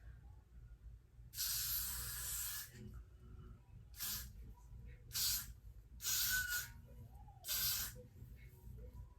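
Aerosol spray can sprayed in five hissing bursts: one long burst of about a second, then four short ones.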